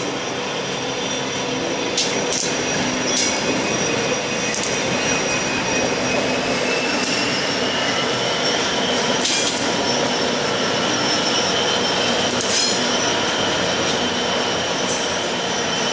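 Four Pacific National 82 class diesel-electric locomotives (EMD JT42C) running past at the head of an empty coal train, engines working steadily. Over them a high thin tone slowly rises in pitch, and a few sharp clicks come from the wheels and track.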